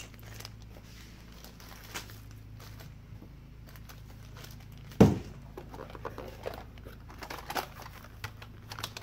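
Plastic parts bags crinkling and rustling as they are handled, with small clicks, and one sharp loud knock about five seconds in as something is set down, over a faint steady hum.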